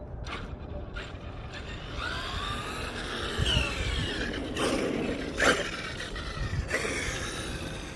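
Traxxas X-Maxx electric RC monster truck driving, its brushless motor and drivetrain whining higher as it speeds up about two seconds in. A steady low rumble runs under it, with several short knocks.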